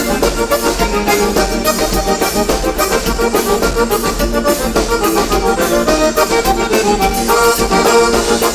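Gaúcho dance music led by the gaita (accordion), played by a band over a steady beat.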